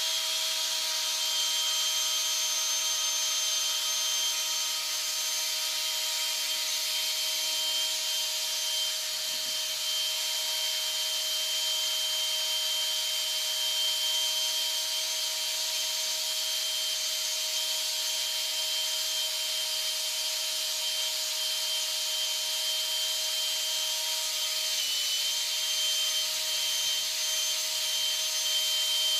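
Cordless drill set to its lowest speed, running steadily with a mixing paddle stirring silicone mould rubber in a plastic cup: an even motor whine. The low speed is chosen to keep air bubbles from being whipped into the silicone.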